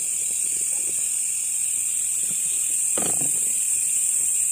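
Steady chorus of night insects such as crickets, a constant shrill high buzz with a second, lower band beneath it. About three seconds in, a brief lower sound cuts through it.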